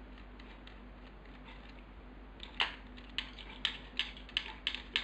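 Faint steady hum, then from about halfway a run of sharp, irregular clicks as the plastic housing of a Nikon SB800 flash head is handled and worked apart.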